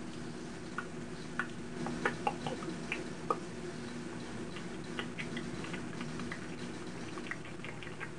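Scattered small clicks and short squeaky ticks, coming in a cluster about two seconds in and again near the end, over a steady low hum.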